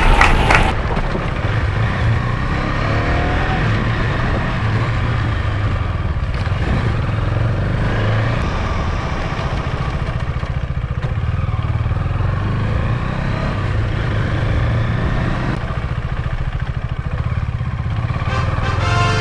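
KTM Duke 250's single-cylinder engine running under way, its revs rising and falling, with a haze of wind and road noise over it. Music comes in briefly at the start and again near the end.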